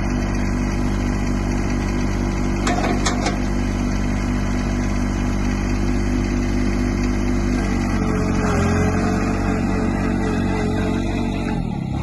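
Diesel engine of a 2019 Yanmar SA24 compact utility tractor running steadily, with a few short clicks about three seconds in. Past the middle the engine note changes and a higher whine joins it, and near the end the engine briefly drops in pitch and picks back up.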